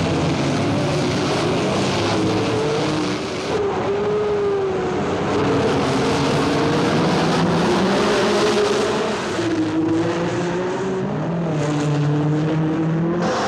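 Several 1960s Formula One racing cars' engines running hard at high revs, overlapping, their pitch rising and falling as they accelerate and pass.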